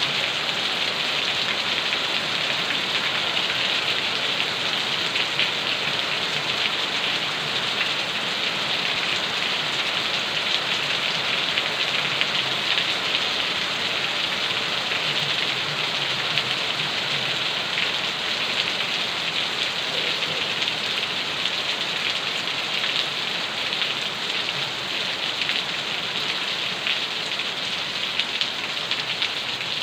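Steady rain falling, with a dense patter of raindrops on surfaces.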